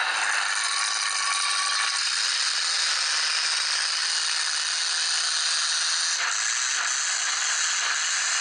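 Demolition derby trucks' engines running hard at high revs while a wheel spins in the dirt: a loud, steady din with no let-up.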